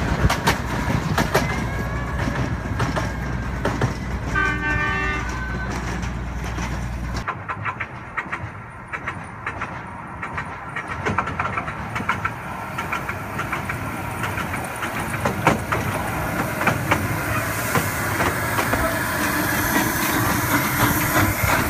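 A 457 mm gauge miniature steam train running along its track, its wheels clicking over the rail joints, with a short pitched tone about four seconds in. Near the end, steam hissing close beside the small locomotive.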